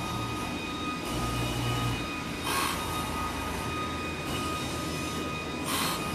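Subway train noise from the station below the street: a steady high-pitched squeal with a rush of noise about every three seconds, over a low rumble that comes and goes.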